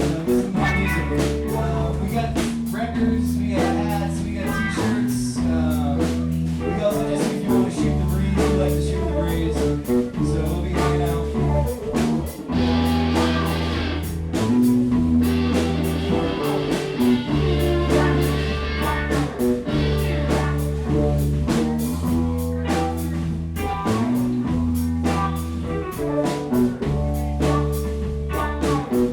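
Live blues band playing: guitars over a bass guitar holding long, steady notes and a drum kit keeping a regular beat.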